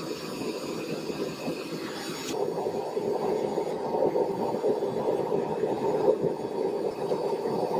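Dry sand being pressed and poured by gloved hands into a wooden casting box: a dense, gritty rustle of grains, changing character about two seconds in.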